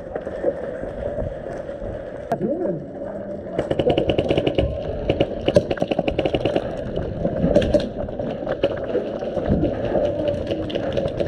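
Airsoft guns firing full-auto, strings of rapid pops starting a few seconds in and coming again on and off.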